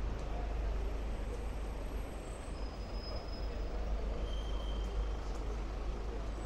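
City street traffic: a steady low rumble of passing vehicles, with a couple of faint, brief high-pitched squeaks.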